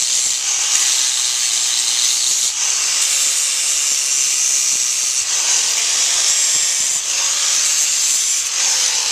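Electric power grinder abrading a horse's hoof, smoothing the frog: a steady, high grinding hiss that shifts slightly several times as the pressure on the hoof changes.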